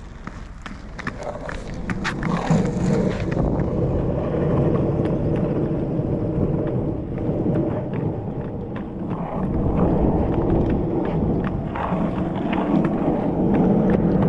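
Roller-skate wheels rolling on rough pavement: a steady rumble, getting louder over the first couple of seconds, peppered with small clicks and rattles.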